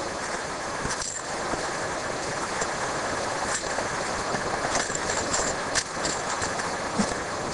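Steady rush of water from a nearby mountain stream and waterfall, with irregular crunches of footsteps on dry leaves and twigs along the trail.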